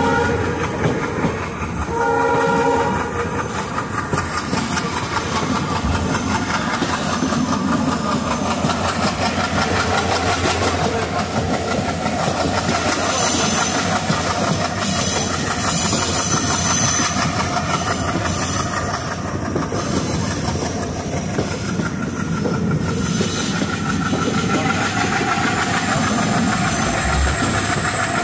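Passenger train heard from on board, running along the line with a steady rumble and clatter of the coaches. The locomotive horn sounds in two short blasts within the first three seconds.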